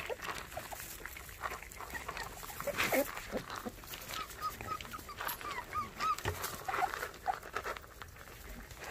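Baekgu puppies eating dry kibble from a plastic bowl, with crunching and the clicking of kibble against the bowl. In the middle comes a quick run of short, high whimpers, then a few lower ones.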